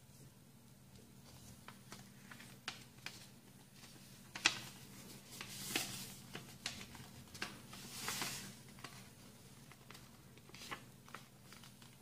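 A sheet of paper being folded and creased by hand, in irregular crisp crackles and rustles. There is a sharp snap about four and a half seconds in, and longer rustles around six and eight seconds.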